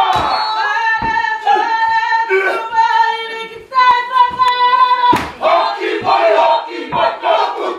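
Māori kapa haka group performing: several voices sing long held notes together, then a single sharp hit about five seconds in and the group's shouted haka chant takes over.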